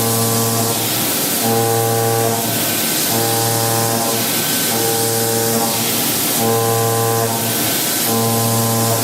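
Background music: a held chord that repeats about every second and a half, over a steady hiss.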